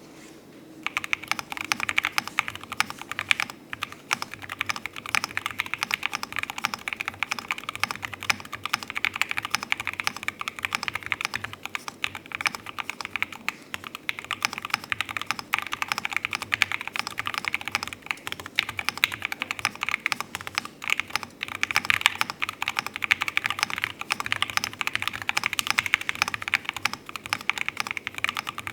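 Continuous typing on a Dusk67 mechanical keyboard with Akko Rosewood switches, GMK Oblivion keycaps, a carbon-fibre plate and a partly cut-out silicone pad: a quick, unbroken stream of keystrokes starting about a second in.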